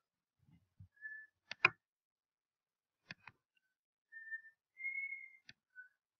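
Computer mouse clicking: three quick press-and-release pairs. Between the clicks come short whistled notes, each held at a steady high pitch.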